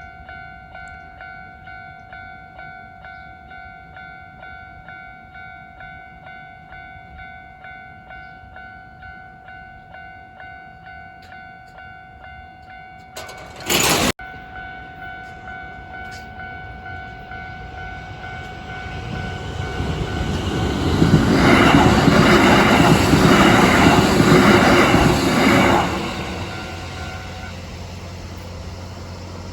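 Japanese level-crossing warning bell ringing in a steady, even rhythm, cut across about halfway by a short, loud blast of a train horn. A Kintetsu Osaka Line electric train then approaches and passes loudly for about five seconds, its wheels clacking over the rail joints. The bell stops soon after the train has gone.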